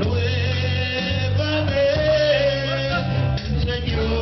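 Live worship music: a voice singing a held melody over bass and guitar.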